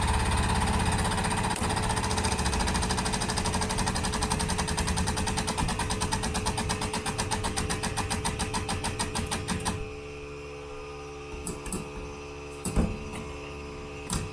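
Air-over-hydraulic pump on a homemade scrap press chattering rapidly as it drives the ram. Its pulses slow as the load builds, and it stops abruptly about ten seconds in. A few light knocks follow.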